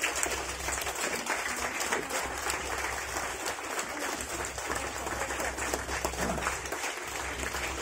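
A crowd applauding with steady, dense clapping.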